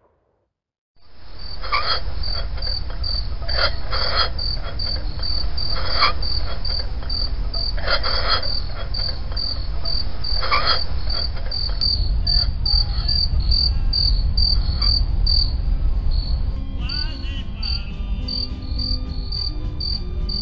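Crickets chirping steadily, about two chirps a second, over a low steady rumble. The sound starts about a second in.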